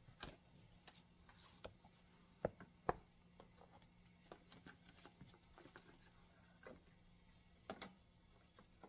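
Cardboard headphone packaging being handled: scattered light taps and rustles, with two sharp knocks close together between two and three seconds in.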